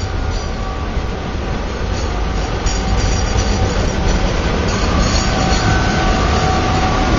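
SNCF BB 8500-class electric locomotive BB 8549 moving past close by. Its low rumble grows louder as it nears, with a steady whine of a few high tones over it.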